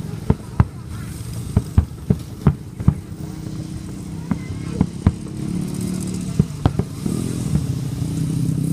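Motorbike engines running, their hum growing louder in the second half, with many sharp, irregular pops and knocks over it.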